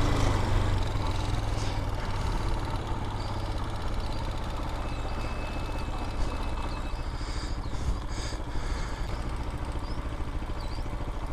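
Vitacci BSR Raven 250 dirt bike's air-cooled 250cc engine running steadily at low speed, heard from the rider's position with wind noise over it.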